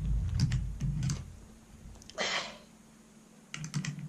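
Small metallic clicks and scraping as a Mauser M48 rifle bolt is worked by hand, its cocking piece being turned against a very tight firing-pin spring. About two seconds in comes a short, sharp breath of effort, then a few more clicks near the end.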